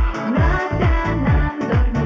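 Background music with a steady electronic beat: a deep kick drum about twice a second under held synth notes.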